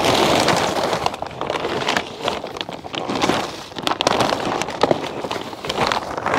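Plastic polyfilm cover of a low hoop tunnel rustling and crackling as gloved hands pull it back and bunch it up, with many small crinkling clicks.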